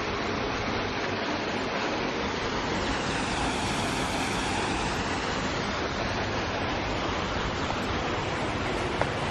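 Steady rushing noise of water falling from a rock waterfall into a pond, fullest about four seconds in, with one sharp click near the end.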